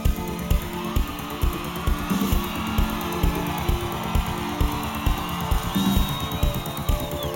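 Live synth-pop band playing an instrumental passage: a steady drum beat with bass guitar, electric guitar and held synthesizer chords. A high held synth or guitar tone comes in near the end.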